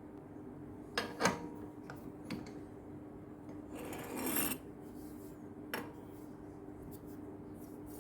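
Metal workpieces being handled and clamped at a milling vice: a few light metallic knocks and clicks, and a short scraping rub about four seconds in, over a steady low hum.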